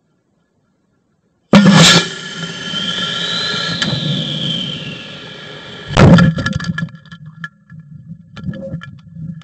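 Estes D12-3 black-powder model rocket motor heard from a camera riding on the rocket. After silence it ignites suddenly and loudly about a second and a half in, followed by a rush of thrust and air noise with a whistle that rises and falls and then fades. About four and a half seconds after ignition the ejection charge goes off with a sharp bang, followed by rattling and wind noise as the recovery section deploys.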